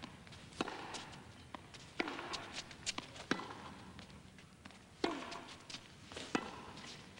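Tennis ball struck by rackets and bouncing on the court in a rally: sharp pops about one to one and a half seconds apart, six or so in all, over faint crowd hush in the arena.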